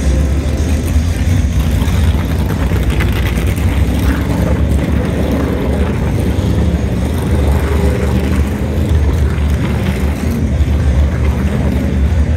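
NASCAR Cup Series stock cars' V8 engines running at low speed as the cars roll along pit road, a steady, deep engine drone.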